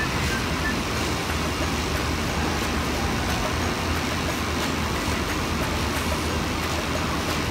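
Steady rush of air with a low, even hum from the fan of a model-airplane wind tunnel display.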